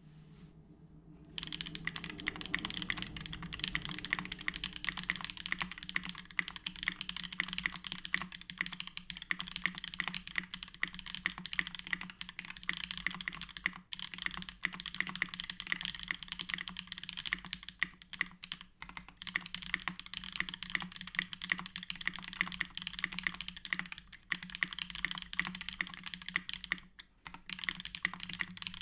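Custom mechanical keyboard with Holy Gsus switches lubed with 3204, an aluminium plate and GMK HFO keycaps in an LZ-SQ case, typed on quickly and continuously. The typing starts about a second and a half in and has a few brief pauses.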